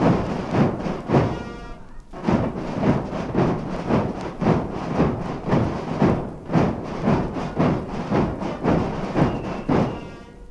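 Katzenmusik (Swiss carnival Guggenmusik band) playing a march: brass and drums with a heavy beat about two times a second. The band breaks off briefly about two seconds in, then plays on and stops just before the end.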